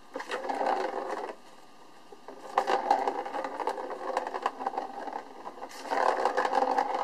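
A plastic ball rolling fast around the circular plastic track of a cat scratcher toy as a kitten bats it, a continuous rattle with many small clicks. It stops about a second in and starts again about a second later.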